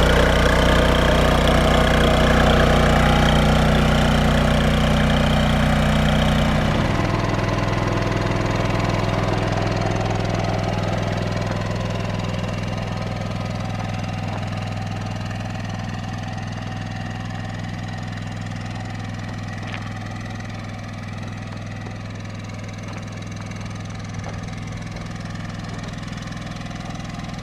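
Onan RV generator engine running steadily. About seven seconds in its tone changes abruptly to a lower, smoother hum, which then grows gradually fainter.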